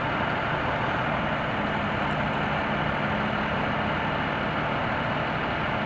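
Heavy truck engine idling steadily.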